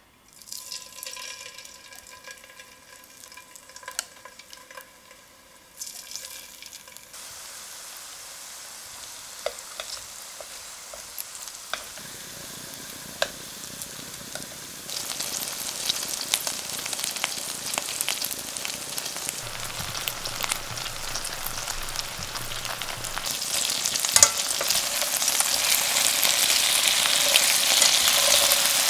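Marinated beef pieces frying in olive oil in a stainless steel sauté pan over low heat, sizzling. The sizzle grows louder in steps as more meat goes in, with chopsticks and tongs clicking against the pan now and then.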